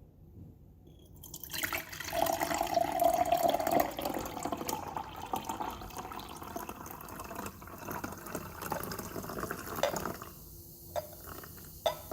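Liquid being poured from a beaker, running and splashing for about eight seconds as the luminol solution and the peroxide solution are mixed together; then a few small clicks near the end.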